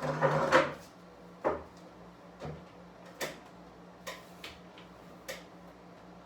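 Plastic parts of a ductless mini-split indoor unit being handled during cleaning: a short burst of clattering at the start, then single sharp clicks and knocks about once a second, over a steady low hum.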